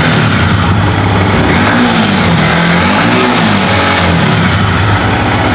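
Yamaha MT-15's 155 cc single-cylinder engine running at idle through its exhaust, loud, with two short throttle blips about two and three seconds in.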